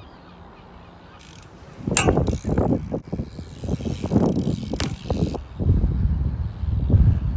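BMX bike riding a concrete skatepark ramp: a sharp knock about two seconds in, then clicking and rattling from the bike and its tyres on the concrete, a second knock near five seconds, and a low wind rumble on the microphone in the last two seconds.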